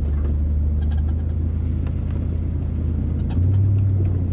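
Truck engine running at low speed with a steady low drone. A little over three seconds in, the pitch steps up briefly as the throttle is opened, and faint light knocks and rattles are scattered over it.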